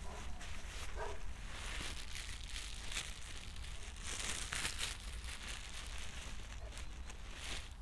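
Rustling and crinkling close to the microphone, with scattered small clicks and a louder patch of rustle about four seconds in, over a steady low rumble.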